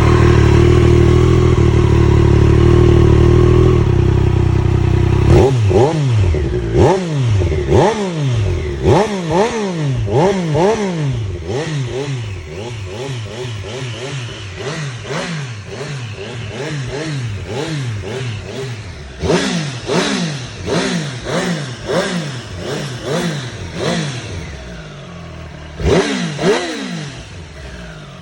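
2022 Triumph Street Triple R's 765 cc inline three-cylinder engine through its stock exhaust, running steadily for about five seconds and then revved with quick throttle blips, each rising and falling again, in runs of several with short pauses, and two final blips near the end.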